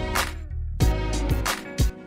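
Background music with a steady drum beat and sustained instrumental notes, cutting out briefly a little after the start.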